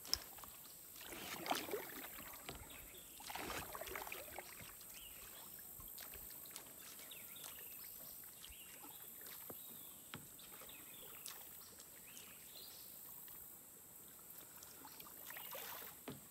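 Kayak paddle dipping and pulling through calm water: two swishing strokes in the first few seconds and another near the end, with small drips and splashes between, over a steady high-pitched drone.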